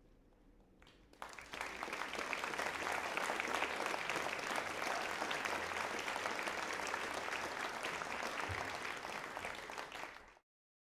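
Audience applauding, breaking out about a second in after a brief hush, then cut off abruptly near the end.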